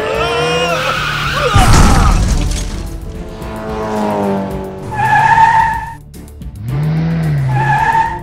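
Cartoon race-car sound effects: an engine revving up in rising glides, a loud crash about two seconds in as the car smashes through a wall, then more revving and two screeching tire squeals near the end, over background music.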